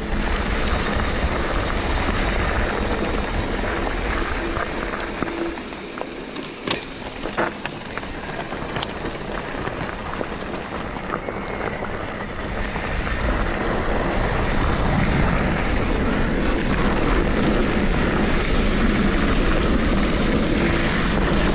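Steady wind rush on the microphone of a mountain bike rider's camera while riding a trail, with a few sharp knocks about six to eight seconds in.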